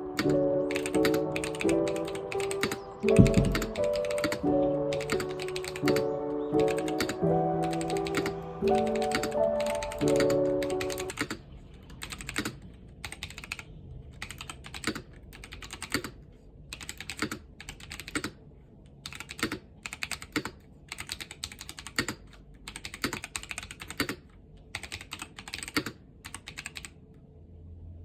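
Typing on an Epomaker TH80 mechanical keyboard with Akko Ocean Blue switches: keystrokes in quick bursts with short pauses between. Music plays under the typing for about the first eleven seconds, and the typing stops about a second before the end.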